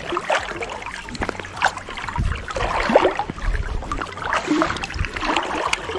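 Water splashing and lapping around a float tube on a pond, irregular and uneven.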